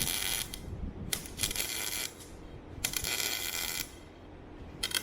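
MIG welder laying short welds on steel: a crackling sizzle of the arc in bursts about a second long, four of them with short pauses between.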